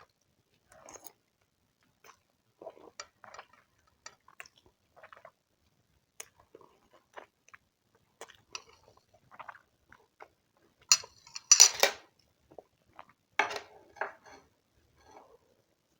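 Close-miked eating sounds: wet chewing and mouth smacks, with an eating utensil clattering loudly against the dish twice, about eleven seconds in and again a couple of seconds later.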